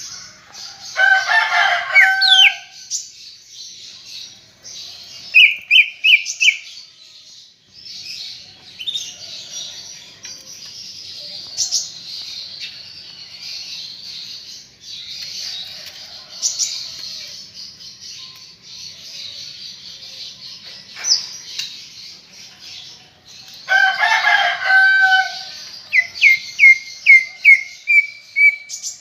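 Green leafbird (cucak ijo) in full song: a continuous high, rapid twittering chatter, broken by two louder, harsher bursts, one about a second in and one near 24 s, and by fast runs of repeated sharp notes around 6 s and again near the end.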